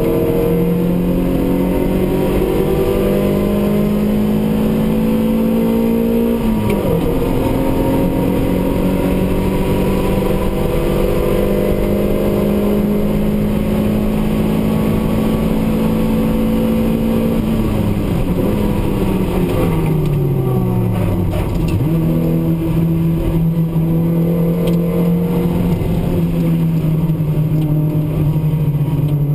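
Race car engine heard from inside the cabin under hard driving. The revs climb slowly, drop sharply at a gear change about six seconds in, then hold and creep up. Later they fall away for several seconds before the engine picks up again toward the end.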